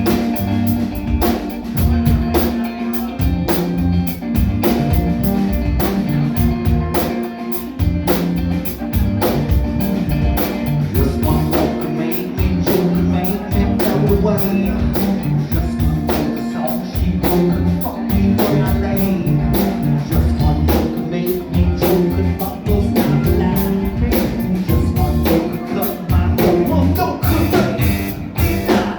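Live rock band playing a funk-rock song: drum kit, electric bass, electric guitar and some singing, loud and steady.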